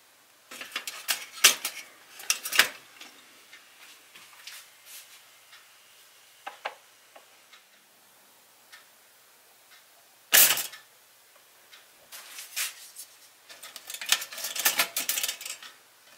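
Clicks and clatter from a two-slot pop-up toaster as bread is dropped into the slots and the lever is pushed down, then a single loud snap about ten seconds in as the toaster pops up. Wooden tongs then knock and scrape against the slots as the toast is lifted out.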